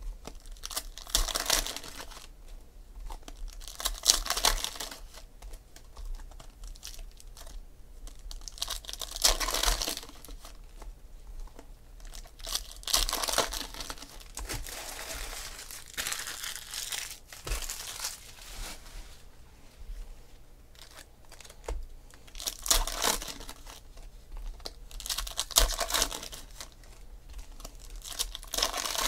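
Foil trading-card pack wrappers being torn open and crinkled by hand, in irregular bursts of crackling every few seconds.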